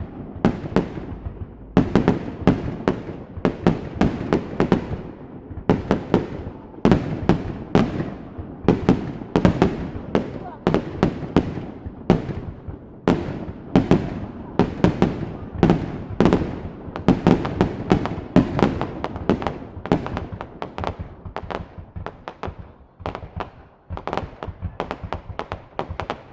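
Fireworks display: shells bursting in a steady, irregular barrage of sharp bangs, one to three a second, each trailing off in a short echo.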